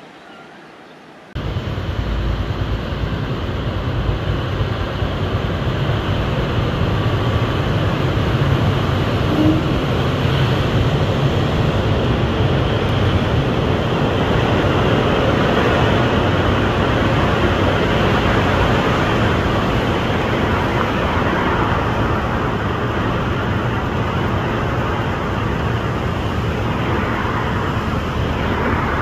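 Steady rumble of road traffic with a strong low end, starting abruptly about a second and a half in.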